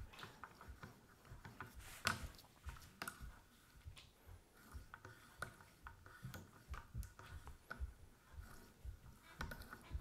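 Faint, light pull strokes of an Edge Pro sharpener's arm carrying 6,000-grit polishing tape along a Swiss Army knife blade, with scattered soft clicks and taps as the arm is lifted and set back down; the loudest tap comes about two seconds in.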